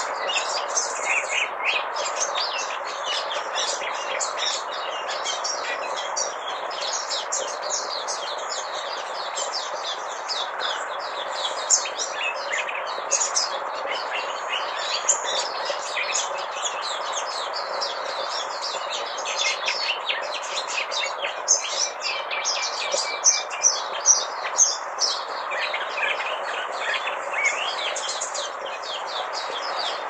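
Caged white-eye singing a long, unbroken, rapid twittering song of high chirps and trills in a canary-like style, over a steady background hiss.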